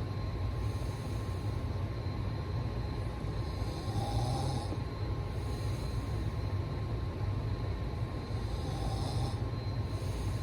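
A person snoring, a slow rhythm of breaths about every four to five seconds over a steady low rumble.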